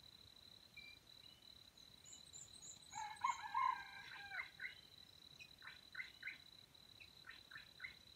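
A junglefowl rooster crows once, a call of about a second and a half starting about three seconds in, followed by a few short call notes. A small bird chirps faintly just before the crow, over a steady thin high tone.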